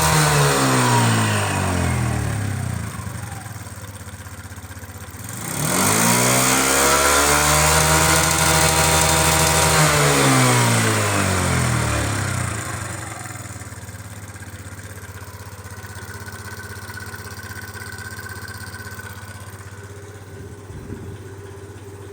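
Suzuki Let's 4 (CA41A) scooter's small four-stroke single-cylinder engine blipped up and held at high revs, then dropping back to idle, twice. The seller lists an abnormal engine noise and a poorly repaired exhaust leak on this engine.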